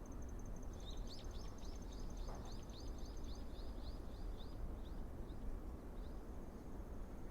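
A bird gives a quick series of high, downward-sliding chirps, about five a second, that slows and thins out over a few seconds. Behind it an insect's steady, high pulsing trill stops partway and then comes back.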